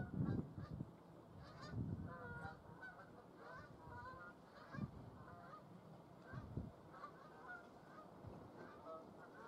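A flock of geese honking, many short calls overlapping and repeating throughout. A low rumble is loudest at the start and comes back briefly a few times.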